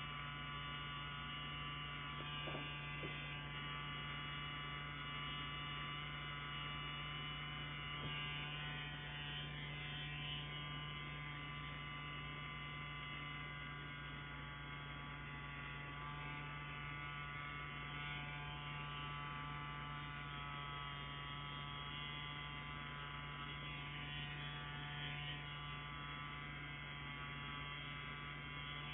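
CNC Q5 wireless rotary tattoo pen running steadily, a constant even buzz from its motor.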